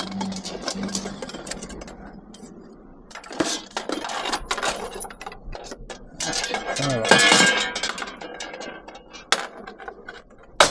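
Scrap metal clanking and rattling as it is handled and loaded, with many sharp knocks and clinks and two longer stretches of rattling.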